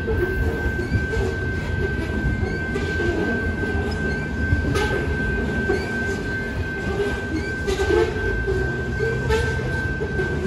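Loaded covered hopper grain cars of a freight train rolling past, a steady low rumble of steel wheels on rail with sharp clicks every second or two. A thin, steady high tone runs throughout.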